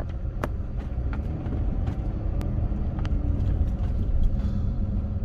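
Car driving on the road, heard from inside the cabin: a steady low rumble of engine and tyres, with a few faint clicks scattered through it.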